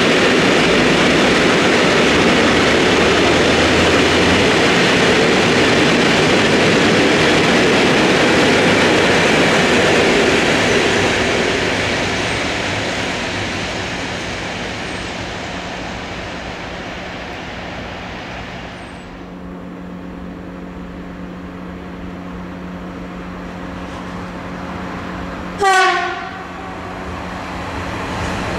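Long train of open freight wagons rolling past, its noise fading away over the first twenty seconds as it leaves. Then a steady hum and rolling noise building as an ÖBB Vectron electric locomotive hauling freight wagons approaches, with one short horn blast near the end.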